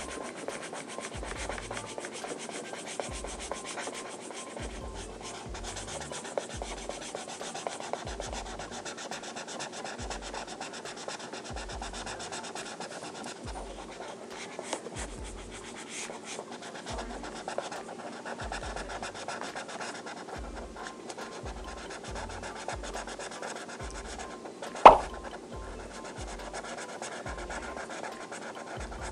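Felt-tip marker scratching back and forth on paper, filling in a large area of colour, over faint background music with a steady bass beat. A single sharp click near the end.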